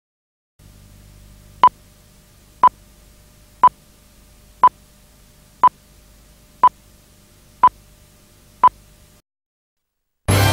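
Film countdown leader beeps: eight short beeps of one pitch, one a second, over a faint low steady hum. After a brief silence, a loud burst of noise starts near the end.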